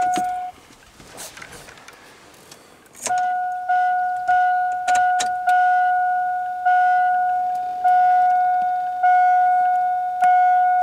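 A truck dashboard warning chime, a plain electronic ding, sounds briefly at the start. From about three seconds in it dings over and over, each ding fading a little, at first about twice a second and then about once a second. A few sharp clicks fall among the first dings.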